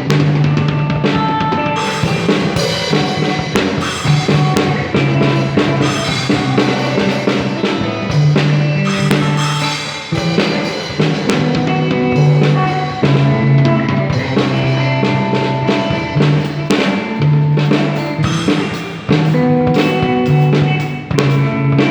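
A band playing rock music: a drum kit keeps up a busy beat under held bass notes that change about every second.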